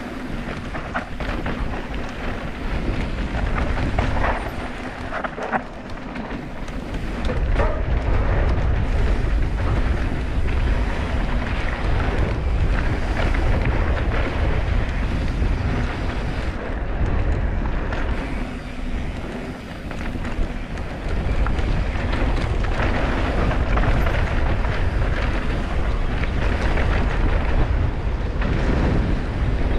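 Wind buffeting the microphone of a mountain bike rider in motion, over the rush and crunch of tyres on a dry dirt trail. Sharp clicks and rattles from the bike over rough ground come in the first several seconds, and the noise eases briefly twice.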